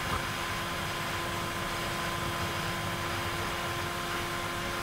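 Steady road and engine noise inside a Citroën XM's cabin while cruising: an even hiss with a faint steady hum and a higher faint whine.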